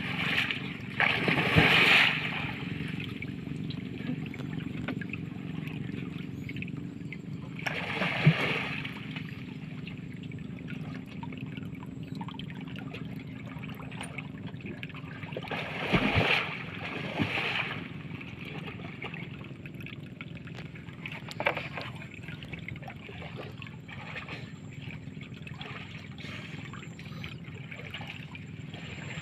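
Water splashing and sloshing as a man wades chest-deep and gropes by hand among water hyacinth, with louder splashes about two, eight and sixteen seconds in, over a steady low background rumble.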